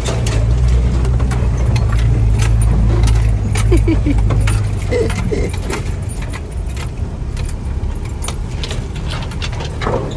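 Inside the cab of an old four-wheel drive driving on a rough bush track: the engine drones low, heavier for the first half, while loose parts and keys rattle and jangle throughout.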